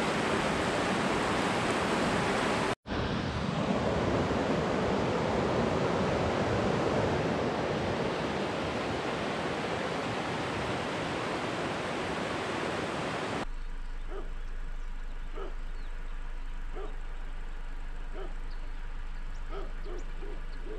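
Steady rush of river water, with a brief break about three seconds in. About thirteen seconds in it cuts suddenly to a quieter scene: a low steady hum with a series of short calls.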